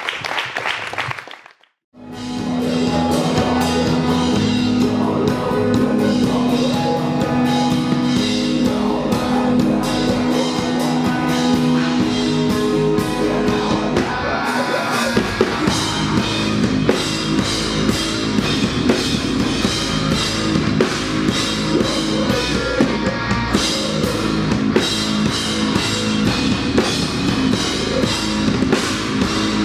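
Live band playing heavy rock on electric guitars and a drum kit. The music starts abruptly about two seconds in after a short silence, and the song moves into a new, denser section about halfway through.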